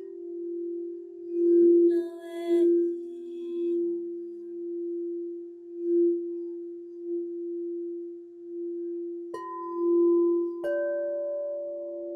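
Singing bowl holding a steady, slowly pulsing tone, with a brief brighter chiming about two seconds in. Near the end, two more strikes about a second apart each start a new, higher ringing tone over it.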